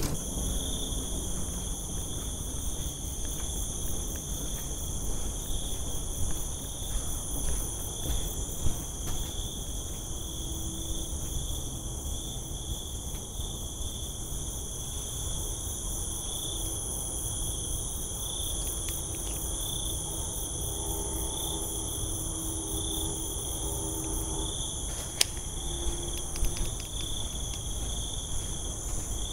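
A steady chorus of insects calling without a break at several high pitches, over a low rumble.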